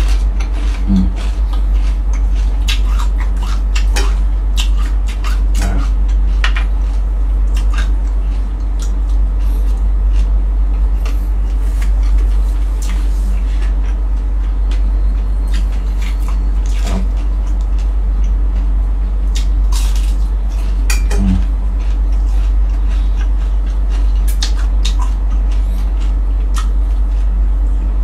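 Close-miked eating of fried round scad (galunggong) by hand: scattered smacks, clicks and crunches of chewing, with an occasional clink of dishes, over a steady low hum.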